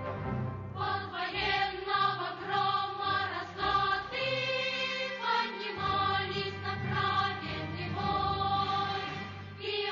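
Music: a song sung by a choir of voices over instrumental backing.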